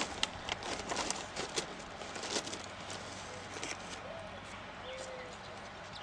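Red-bellied woodpecker pecking at a suet feeder on a wooden post: a quick, irregular run of sharp taps that thins out about halfway through. After that come a few soft, low hooting notes, the first rising and the rest held.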